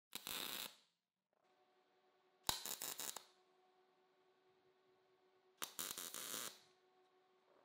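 Three short MIG tack welds on steel, each a burst of arc crackle lasting about half a second to a second, spaced roughly two and a half seconds apart. A faint steady hum sounds between the tacks.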